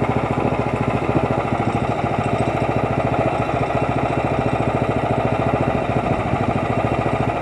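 Small gasoline engine of a Frontier OS23 portable sawmill idling steadily, warming up before the cut.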